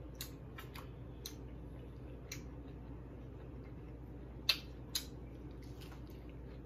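Close-miked chewing of a taco with a baked-cheese shell: scattered short mouth clicks, with two sharper, louder clicks about four and a half and five seconds in.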